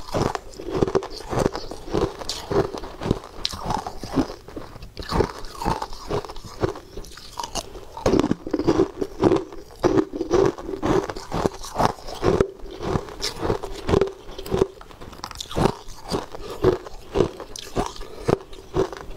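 Ice cubes being bitten and crunched between the teeth: a steady run of sharp, brittle crunches, a few a second, with chewing in between.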